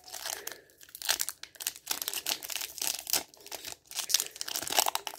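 Foil Yu-Gi-Oh booster pack wrapper crinkling and tearing in irregular crackles as it is pulled open by hand, the wrapper not tearing open cleanly.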